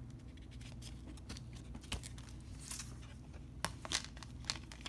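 Handling of a plastic Blu-ray case and its paper cover sleeve: a soft rustle of the sleeve, then several sharp plastic clicks and taps in the second half. A faint steady low hum runs underneath.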